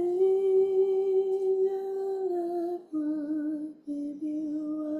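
A woman humming a slow tune with closed lips: one long held note of about two seconds, then a few shorter notes stepping lower.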